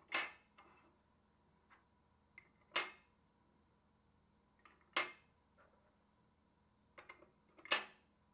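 Small clear plastic mini-figure boxes clicked one at a time into a clear plastic display stand. There are four sharp plastic clacks, two to three seconds apart, each with lighter taps of handling just before it.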